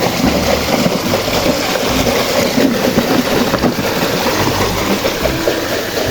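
Water splashing and running continuously as muddy toys are washed.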